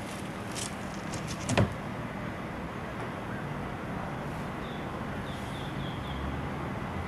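Raccoon rummaging in a lined trash can: a few clicks and rustles, then a sharp knock about a second and a half in as it scrambles out, over a steady low background hum of distant traffic.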